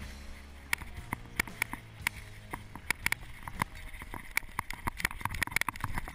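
Mountain bike rattling and clattering as it rides down a rough dirt trail: irregular sharp clicks and knocks from the jolting bike over a steady low rumble.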